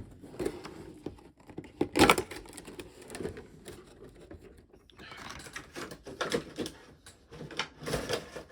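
Cardboard figure box and plastic packaging being handled and opened: scattered clicks and scrapes, a sharp knock about two seconds in, and denser rustling and crinkling from about five seconds on.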